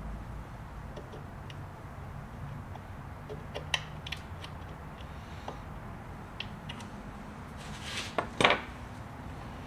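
Small metal sewing-machine parts being handled and fitted: scattered light clicks and taps, with a louder short scraping rattle near the end.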